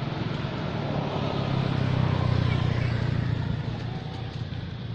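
A motor vehicle engine running, its low hum growing louder toward the middle and fading near the end.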